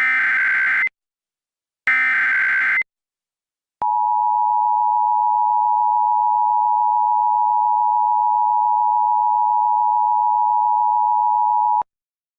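Emergency Alert System header: two roughly one-second bursts of SAME digital data tones, a shrill buzzing warble. About a second later comes the steady two-tone EAS attention signal, held for about eight seconds before it cuts off abruptly.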